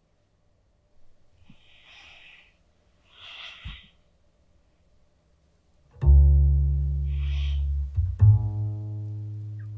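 Two faint breaths, then deep low string notes of a film score: a loud sustained note starts sharply about six seconds in and a second follows about two seconds later, with another breath between them.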